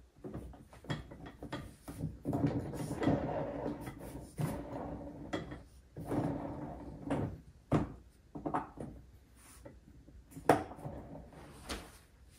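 Hard plastic parts of a kids' electric ride-on car being handled and fitted together: an irregular run of clicks and knocks with some scraping and rubbing, the sharpest knock about ten seconds in.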